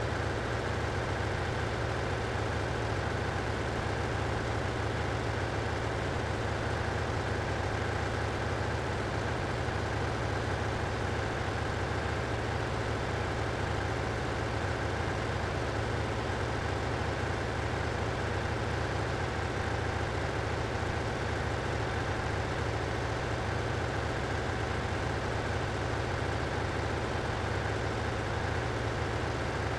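Steady, unchanging machinery drone of a ship's engine room: a strong low hum with a fainter steady whine above it.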